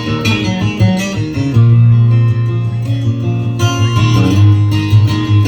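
Instrumental break of a country song: guitars playing over a bass line, with no singing.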